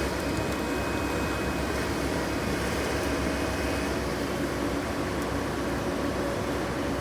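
Heavy equipment diesel engine running steadily under an even load.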